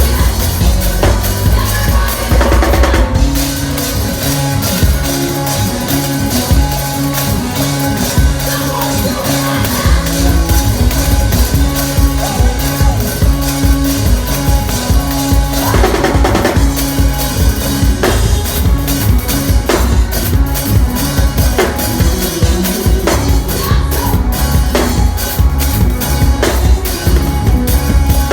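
Live church band music: drum kit with kick, snare and rimshots over bass and keys. The bass and kick drop out for several seconds early on and come back in about ten seconds in.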